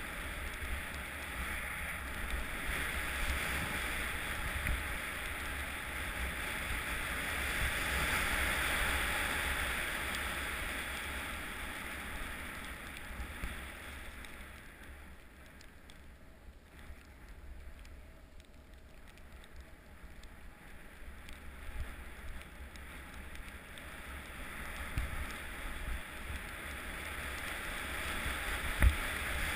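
Wind rushing over a helmet-mounted camera along with the hiss of sliding down through snow. It is loudest in the first half, drops for several seconds in the middle, builds again, and has a couple of sharp knocks near the end.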